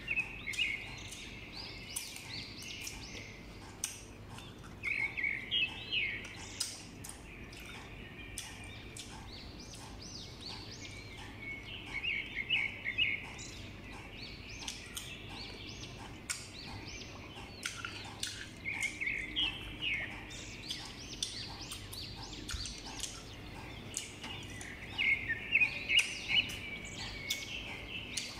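Birds chirping in rapid trills that come in bursts about every six or seven seconds, loudest near the end, over short crisp clicks and crunches of someone chewing raw green mango.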